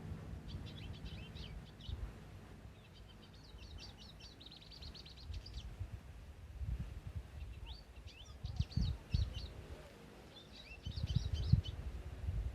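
Small songbirds singing in short bursts of quick, high chirps, four phrases spaced a few seconds apart. Under them runs an uneven low rumble that swells in the second half, with its loudest bumps about nine and eleven seconds in.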